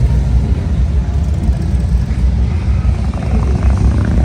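Motorcycle engines running, a steady low pulsing sound.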